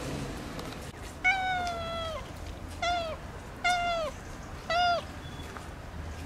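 Brown tabby cat meowing four times: one long call that falls in pitch, then three shorter meows about a second apart.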